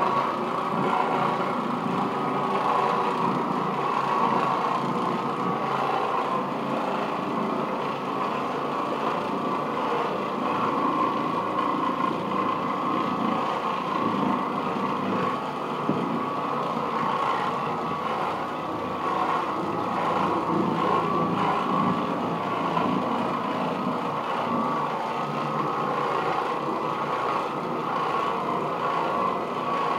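Oreck Orbiter orbital floor machine running steadily, its bonnet pad scrubbing carpet as it is pushed back and forth.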